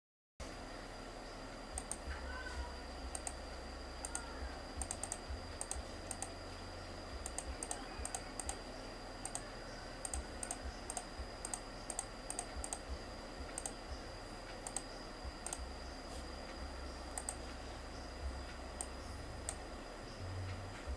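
Irregular clicking of typing at a computer, several clicks a second, over a steady low hum and a faint high-pitched tone; the sound cuts in about half a second in.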